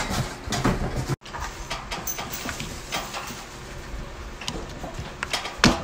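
Scattered clicks and knocks of hard plastic parts being handled as a children's ride-on toy motorcycle is assembled: a screw driven into the plastic body, then a plastic rear wheel and hub cap pushed onto its axle. The sound breaks off briefly about a second in, and the loudest knocks come near the end.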